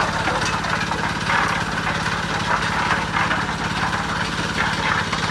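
Small engine of a portable concrete mixer running steadily, with a rough rushing noise over it.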